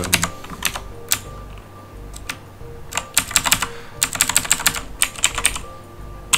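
Typing on a computer keyboard: scattered single keystrokes, then quick runs of key presses about three, four and five seconds in.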